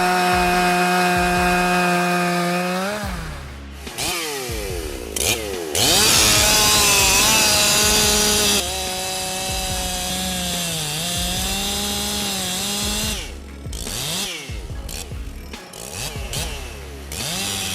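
Makita EA7900PRZ1 two-stroke petrol chainsaw running at high revs and cutting wood, its pitch sagging under load. Its revs drop and rise again between cuts, and it runs in shorter, broken bursts near the end.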